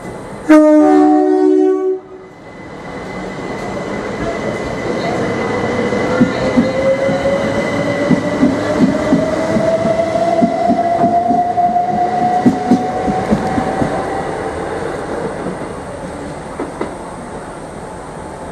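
Two-tone train horn blast lasting about a second and a half, then a Southern Class 377 Electrostar electric multiple unit pulling away. Its traction motors whine steadily higher as it accelerates, with wheels clicking over the rail joints, and the sound fades as it leaves.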